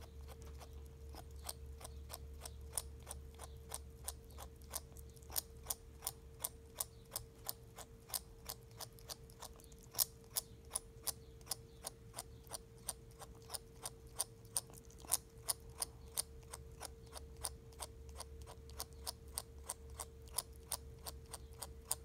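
Ferret grinding and clicking its teeth, with its head in the kibble bowl: a rapid, even train of sharp clicks, about three a second. A faint steady hum sits underneath.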